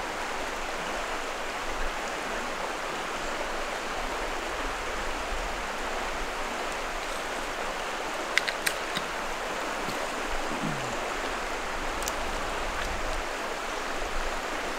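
Steady rush of a shallow, rocky river flowing over and around stones, with a few brief faint clicks about eight and a half seconds in.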